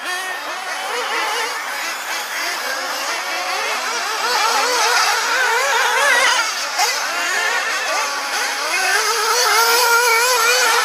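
Several radio-controlled off-road buggies racing, their small high-revving motors whining, the overlapping pitches rising and falling as they accelerate and brake; a little louder after a few seconds as one comes close.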